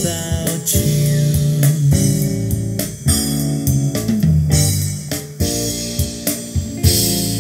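Music with guitar, bass and drums played loudly through a Grundig V304 integrated stereo amplifier and a pair of loudspeakers, picked up in the room.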